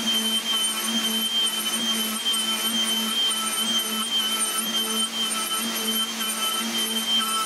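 Handheld electric router running at full speed with a Rezets slab-flattening bit, cutting across the end grain of an oak-and-ash cutting board as it is swept back and forth in a sled. A steady high motor whine sits over a lower cutting hum that pulses about twice a second.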